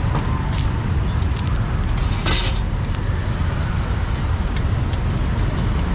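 Steady street traffic rumble, with light metallic clicks of steel tongs against the wire grilling racks of squid over charcoal. A brief hiss a little over two seconds in.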